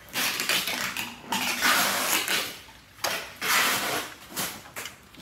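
Hands working at the opened clutch side of a Honda Dream motorcycle engine make a run of rustling, hissing strokes, each about a second long with short breaks between them.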